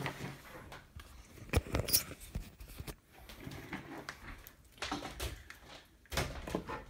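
Handling noise: a few scattered clicks and knocks with soft rustling as a cable is set down and the recording camera is carried over to the TV.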